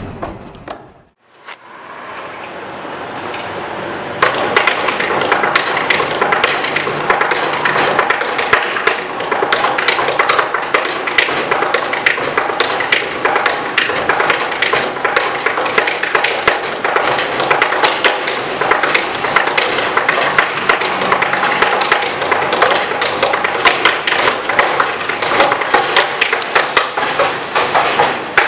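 Tap shoes drumming fast improvised rhythms on the top of a dumpster: a dense stream of sharp taps and heavier thuds that starts in earnest about four seconds in.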